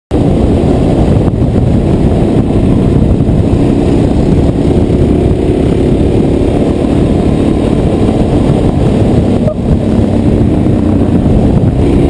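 Suzuki DR-Z400SM's single-cylinder four-stroke engine running at a steady cruise, heard under loud wind rush on the helmet-mounted camera, with a brief dip in level about nine and a half seconds in.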